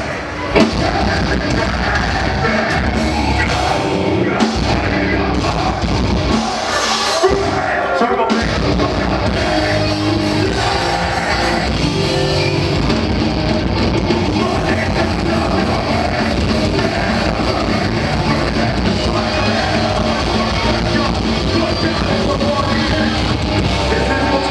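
Heavy metal band playing live at full volume: distorted electric guitars, bass and drum kit, with a vocalist singing and yelling into a microphone. The low end drops out briefly about seven seconds in, then the full band continues.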